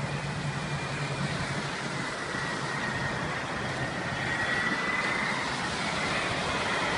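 Turbofan engines of a Beriev Be-200 amphibious aircraft flying low, a steady jet rush with a high whine that slides down and back up in pitch. It grows louder toward the end as the plane approaches.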